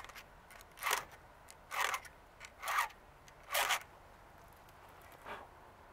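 Chainsaw file rasping across a chain cutter in single forward strokes, sharpening the tooth: five strokes about a second apart, then a fainter one near the end.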